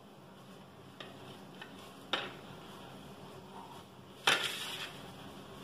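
A few light clicks and a knock on a stainless steel mixer jar as chopped coriander leaves are dropped in by hand, then a louder short clatter of steel kitchenware a little over four seconds in.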